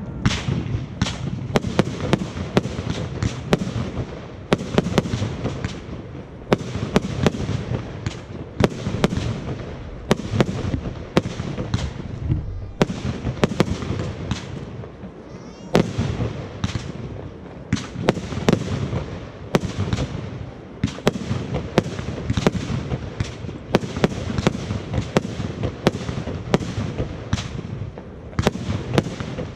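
Aerial fireworks display: many sharp bangs from bursting shells in quick, irregular succession over a continuous low rumble, with a brief lull about halfway through.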